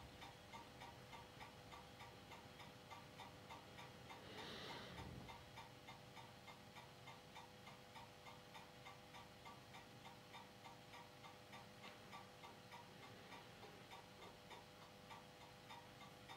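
Faint regular ticking, about three ticks a second, over a steady low hum, with a short rustle about four and a half seconds in.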